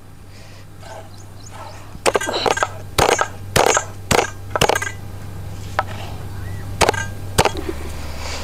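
Stone pestle crushing fresh ginger against stone: sharp knocks, about two a second for a few seconds, then a few spaced-out ones.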